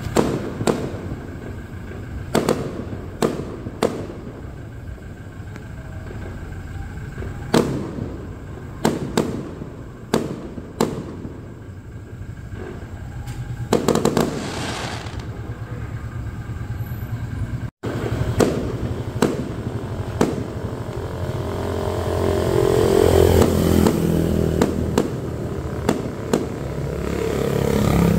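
Consumer fireworks cake firing aerial shells: sharp bangs at irregular intervals, sometimes a few close together, with a denser rush of bursts about halfway through. Near the end a passing vehicle's rush swells and fades under the bangs.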